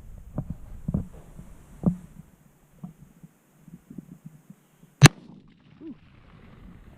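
A single gunshot about five seconds in, sharp and short, preceded by a few faint knocks of handling.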